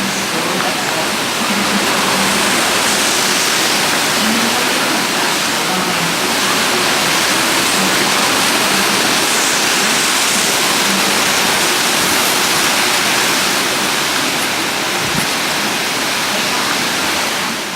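Hurricane Irma's wind and heavy rain: a loud, steady rushing noise.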